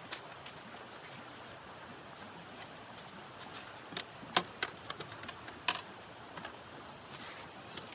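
Scattered sharp clicks and knocks, a handful clustered in the middle, the loudest one about halfway through, over a steady faint hiss.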